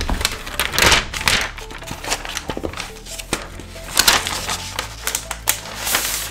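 Protective paper wrap rustling and crinkling in bursts as it is peeled off a laptop, loudest about a second in and again about four seconds in, over background music.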